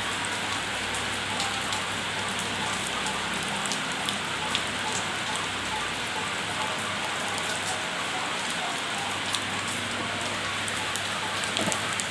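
Steady rain hissing, with scattered single drops clicking close to the microphone.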